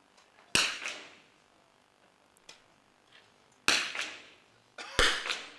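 Three .22 rimfire smallbore target rifle shots, each a sharp crack that rings briefly in the hall: one about half a second in, and two more about a second and a half apart near the end.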